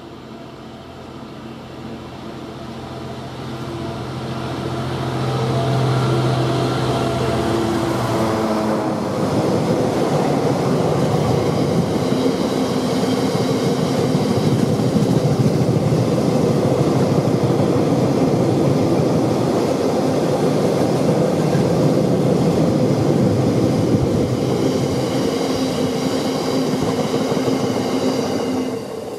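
Class 66 diesel locomotive's two-stroke V12 engine running under load, growing louder as it approaches and passes underneath, its engine note falling away about eight seconds in. A long train of aggregate hopper wagons then rolls past with a steady rumble and rattle of wheels on rail, which falls away sharply near the end as the last wagon passes.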